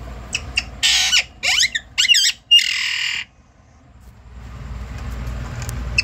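Alexandrine parakeet screeching: four harsh calls in quick succession, the last the longest, an angry defensive squawk from a bird that is trying to bite.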